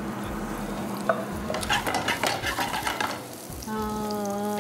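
Chopped onion and garlic sizzling as they fry in oil in a nonstick pan, with clicks and scrapes of stirring, most of them in the middle. A steady pitched hum comes in near the end.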